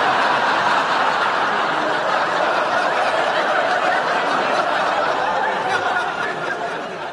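Studio audience laughing together in one long, steady wave, which dies away near the end.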